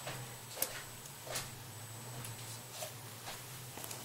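A cat moving about on a bed: a few soft, brief rustles and taps over a low steady hum.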